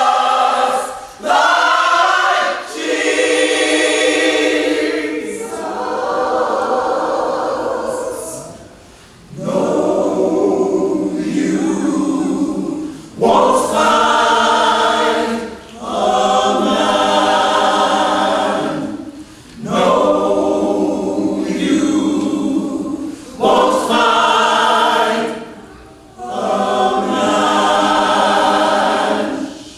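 Gospel choir singing a cappella, many voices holding long phrases with a short break between each every few seconds.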